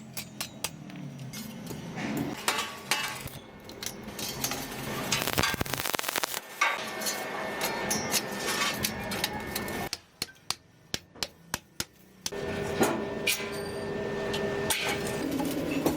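Metalworking: repeated hammer blows on steel, with a dense run of rapid ticks about five seconds in and a steady machine hum in the last few seconds.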